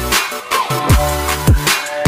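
Background electronic music with a steady beat: bass-drum hits that drop in pitch, twice, after a brief gap in the bass near the start.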